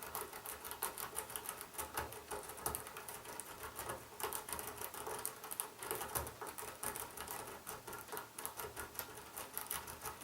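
A lock pick raking rapidly back and forth across the pin stacks of a padlock's keyway, a continuous fast scratchy clicking of metal on the pins. The lock does not open: this padlock resists raking.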